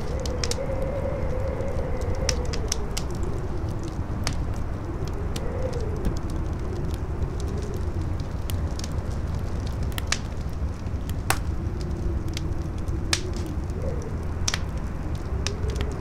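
Campfire crackling, with sharp pops at irregular moments, over the steady low rumble of strong wind and a howl that wavers up and down in pitch.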